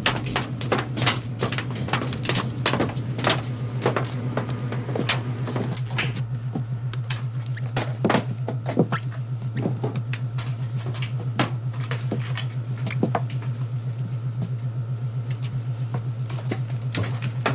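Sniffer dog searching: many scattered sharp clicks and taps from its movement, over a steady low machinery hum that pulses rapidly.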